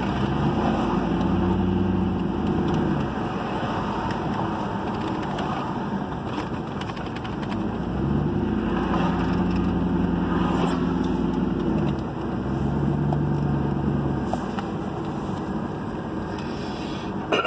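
Car driving along a town street, heard from inside the cabin: steady engine and road noise, with a low hum that swells and fades a few times.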